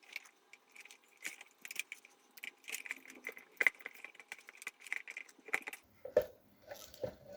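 Scattered small clicks and rattles of plastic and metal parts as a DeatschWerks DW300c fuel pump is worked into its hanger bracket, its O-rings being pressed into the housing.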